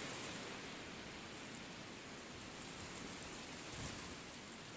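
A steady, even hiss of outdoor background noise, like light rain or wind, with faint scattered high ticks.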